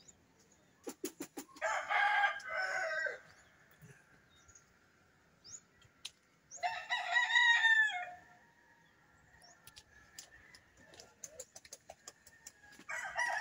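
A rooster crowing twice, each crow lasting about a second and a half, with another crow starting near the end.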